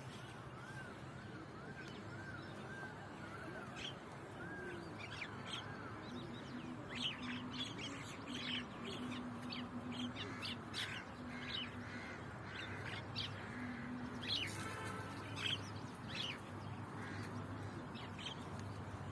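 Several birds calling: a run of repeated short arched calls, then many quick, sharp calls overlapping one another. Beneath them is a steady low rumble of road traffic.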